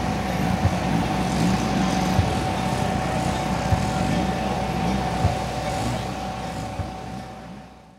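Engine of a giant-scale RC aerobatic airplane running steadily with a low, repeating rise and fall, fading out over the last second or two.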